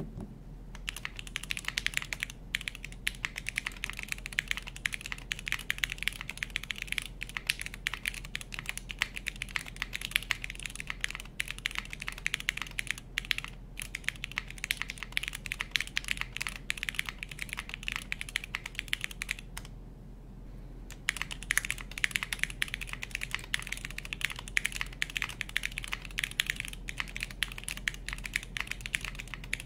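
Continuous fast typing on a TKD Cycle 8 TKL mechanical keyboard, keys clacking densely, with a short pause about twenty seconds in. A steady low hum of room air conditioning runs underneath.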